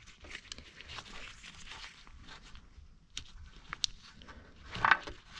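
Gloved hands handling a wiring harness in corrugated plastic split-loom tubing: faint rustling and crinkling, with two sharp little clicks partway through and a louder scrape near the end.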